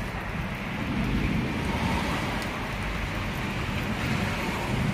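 Thunderstorm ambience: a steady rushing noise with low rumbling swells about a second in and again near the end.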